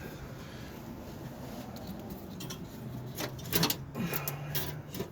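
A few light clicks and clinks of metal parts and tools being handled, mostly in a cluster past the middle, over a low steady hum.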